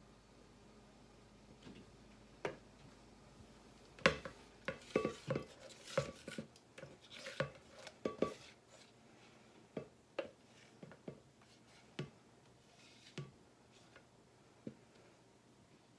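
Kitchen clatter of plastic containers and a utensil: irregular knocks, clicks and scrapes, starting a few seconds in, densest for the next five seconds or so, then thinning to occasional taps.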